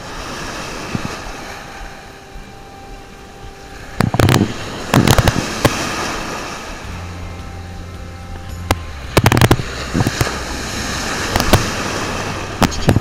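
Shallow surf breaking and foaming around a wading angler, with a steady rush of wind and water. Several loud, crackling splashes come as breaking waves and spray hit right at the camera's microphone: around 4 and 5 seconds in, again around 9, and twice near the end.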